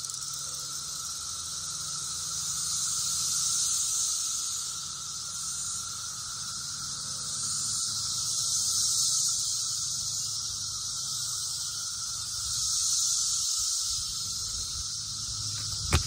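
Brood X periodical cicadas in full chorus: a dense, high-pitched shrill drone that swells and fades in waves every few seconds.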